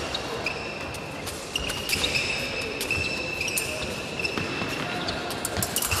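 Fencers' footwork on the piste: shoes squeaking and tapping as they advance and retreat, with sharp clicks scattered through it.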